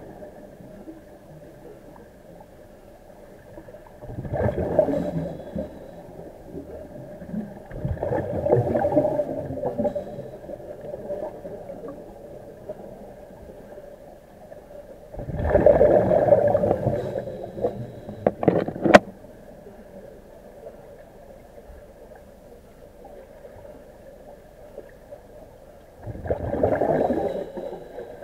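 Bubbles gurgling underwater from a diver's IDA-59M breathing apparatus, in four bursts several seconds apart, over a steady underwater hum. A couple of sharp clicks come about two-thirds of the way through.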